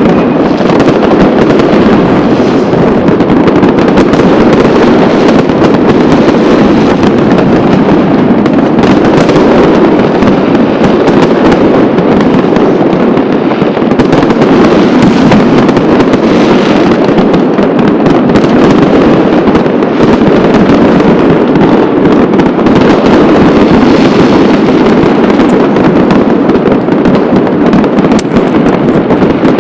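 Fireworks and firecrackers going off without a break, so many bangs and cracks at once that they run together into one constant, very loud crackling din.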